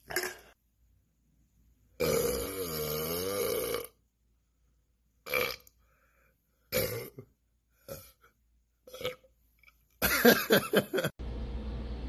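A man burping: one long, loud burp with a wavering pitch about two seconds in, several short bursts in the middle, and a loud, fluttering burp near the end.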